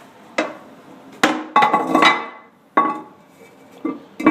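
A plate being handled and set back onto a toilet: a series of about seven sharp knocks and clinks, irregularly spaced, some ringing briefly.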